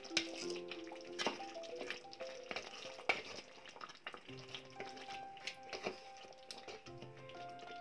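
Wooden spatula stirring chicken curry with freshly added yogurt in a pan, scraping and knocking against the pan now and then while the gravy sizzles softly. Quiet background music of held notes plays underneath.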